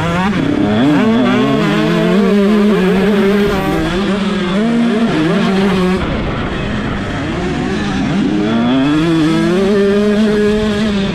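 125cc two-stroke motocross bike engine running hard, heard from on board. It is held high at full throttle with short dips at gear changes, drops sharply about six seconds in as the throttle closes, then climbs back up to a high wail over the last few seconds.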